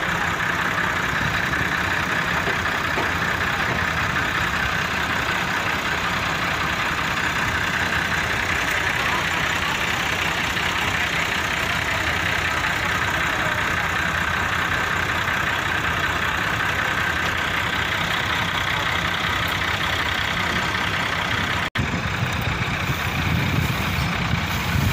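Diesel tractor engines running steadily at idle, with a brief break near the end after which a deeper low rumble comes in.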